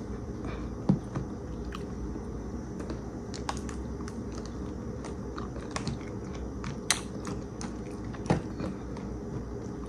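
A person eating yogurt with granola, chewing with scattered small clicks, over a steady low hum.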